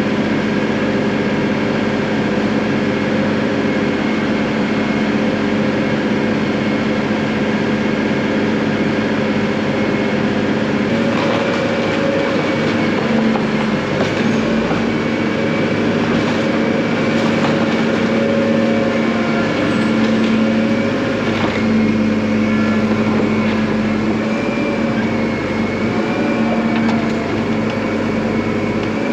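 Engine of a snow-clearing machine running steadily at constant speed. Its pitch wavers slightly from about a third of the way in, with a few light knocks.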